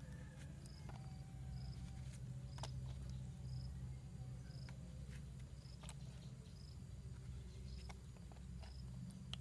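A cricket chirping at an even pace, about one short high chirp a second, over a steady low hum, with a few faint clicks.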